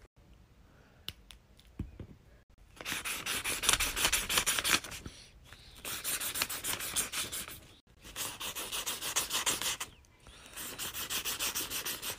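Felt-tip marker scribbling quickly back and forth on paper, a fast rhythmic scratching in four spells of about two seconds each.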